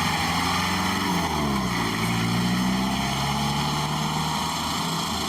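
A vehicle engine running, its pitch dipping and then climbing back about a second and a half in before it settles steady.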